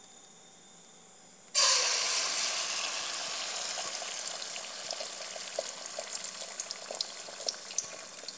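Beaten egg omelette mixture hitting hot soybean oil in a frying pan: a sudden loud sizzle starts about a second and a half in, then slowly eases off, with scattered crackles.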